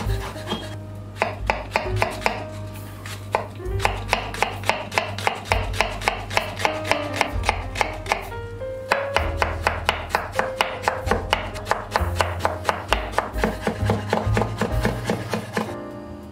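Kitchen knife chopping on a bamboo cutting board in quick, even strikes, several a second: first dicing tomato, then, after a short break a little past halfway, slicing onion. Background music plays underneath.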